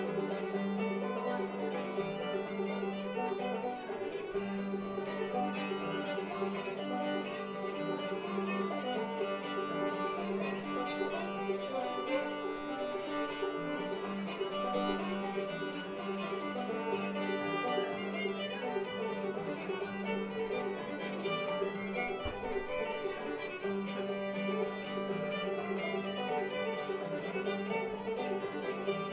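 Old-time string band playing a tune live, a fiddle carrying the melody over plucked strings.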